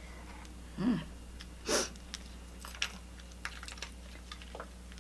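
Close-up mukbang eating sounds: a short hum about a second in, a quick hiss of breath just after, then a run of small wet clicks of chewing and mouth smacks.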